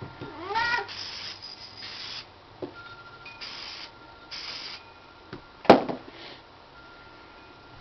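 A cat meows once near the start, then an aerosol can of gun solvent cleaner sprays in three short hissing bursts, the first about a second long. A single sharp click about two-thirds of the way through is the loudest sound.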